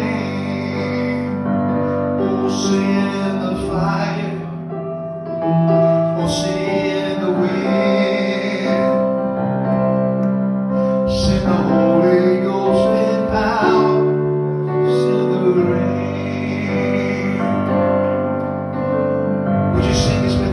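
Live worship music: a keyboard plays sustained chords under sung phrases, the chords changing every few seconds.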